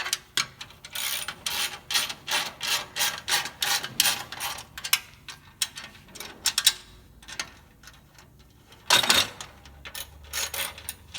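Ratchet wrench clicking in quick runs as a bolt on the dolly's steel frame is tightened, with two short louder bursts of clicking near the end.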